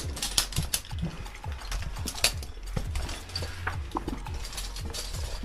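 Footsteps crunching and scuffing on loose stones in a narrow cave crack, with gear and clothing scraping against the rock walls, as an irregular run of small clicks and knocks.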